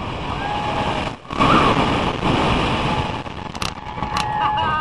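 Roller coaster train in motion heard from an onboard camera: wind rushing over the microphone with the train's rumble, dipping briefly about a second in, and a rider's long yell near the end.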